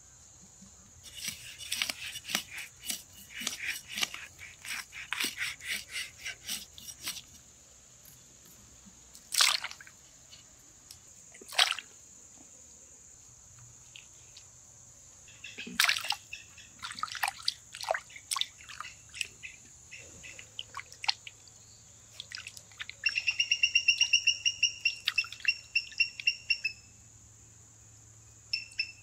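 A kitchen knife working a whole fish on a wooden chopping stump: a run of quick sharp scrapes, then single heavier strokes and another run of scrapes. A steady high insect drone runs underneath, and near the end a bird gives a rapid trill for a few seconds.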